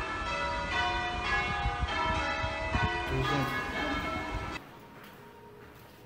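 Church bells ringing, several bells struck one after another at about two or three strikes a second, their tones overlapping. The ringing cuts off abruptly about four and a half seconds in, leaving only faint background noise.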